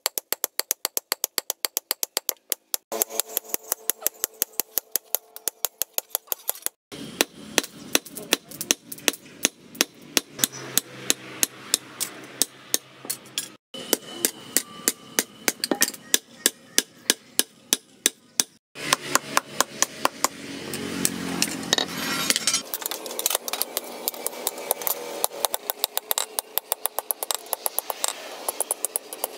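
Hand hammer striking red-hot steel on a steel post anvil: a rapid, even run of sharp metallic blows, about three a second, as a billhook sickle blade is forged out. The run breaks off briefly a few times and picks up again.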